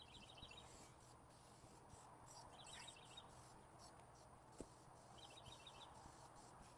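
Near silence, with a faint high chirping trill, a quick run of pulses, repeating about every two and a half seconds.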